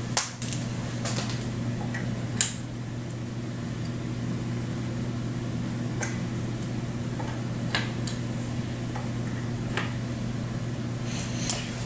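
Scattered light clicks and taps from handling, about eight of them, the loudest about two seconds in, over a steady low hum.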